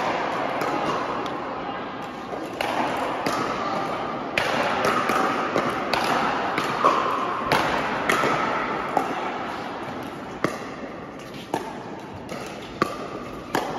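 Pickleball paddles hitting a hard plastic ball, sharp pops about a second apart through a rally, echoing in a large indoor hall, with faint voices in the background.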